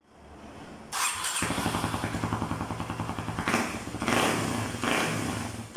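Kawasaki D-Tracker 250's single-cylinder four-stroke engine with an aftermarket DELTA muffler starting. It cranks briefly, catches about a second in and settles into a steady pulsing idle. The throttle is blipped three times near the end.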